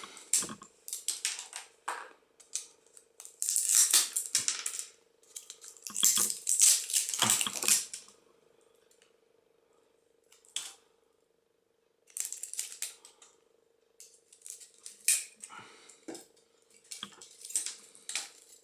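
Small hard plastic and metal pieces of a broken mobile phone clattering and rattling in irregular bursts, with a quiet gap of about four seconds in the middle. A faint steady hum runs underneath.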